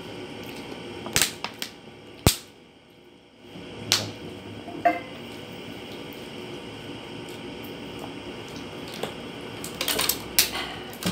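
A clear plastic water bottle handled and drunk from: sharp plastic clicks and crinkles about a second or two in, then a cluster of crinkles near the end as the bottle is lowered.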